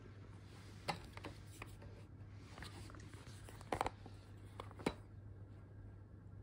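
Plastic spray mop parts being handled: scattered light clicks and knocks of hard plastic, the loudest a quick double knock almost four seconds in and another about five seconds in, over a faint steady low hum.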